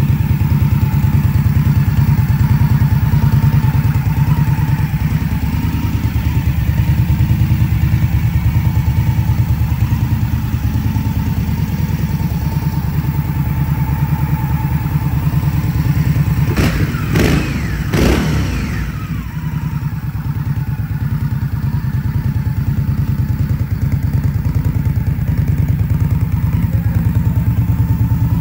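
An Indian Scout's V-twin engine idling steadily, a fast, even low pulse through the stock exhaust, with a few brief knocks about two thirds of the way through.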